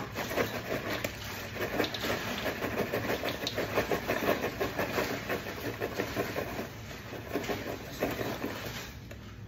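Popcorn kernels popping in quick, dense crackles over a steady hiss from the popper. The popping thins out near the end as the batch finishes.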